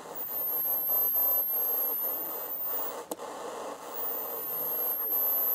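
Hiss and rush from a one-valve super-regenerative shortwave receiver through a small speaker as its knob is turned across the CB band, with a thin very high whine that drifts in pitch and a few clicks. The steady rush is the sign of the set super-regenerating with only 13 volts on its plate, though with little audio output.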